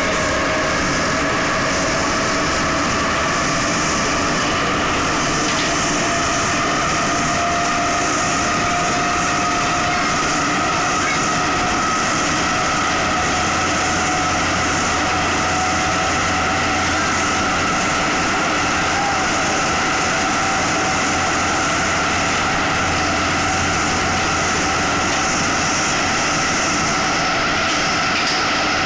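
Soviet-built 81-71 metro train running between stations, heard from inside the car: a steady rumble with a whine that rises slowly in pitch over the first half and then holds level, as the train picks up speed and then cruises.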